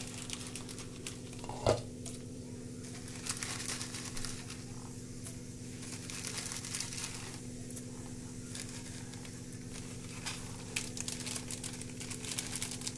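Plastic Maggi instant-noodle packet crinkling and rustling as it is handled and torn, in several spells, with one sharp knock about two seconds in. A steady low hum runs underneath.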